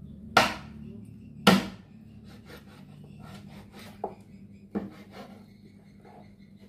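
Large kitchen knife chopping a whole raw chicken on a round wooden cutting board, cutting off the feet: two loud chops about a second apart, then two lighter knocks near the end.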